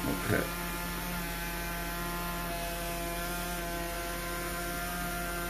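Homemade battery-fed generator rig running, giving off a steady electrical hum with several tones layered over it.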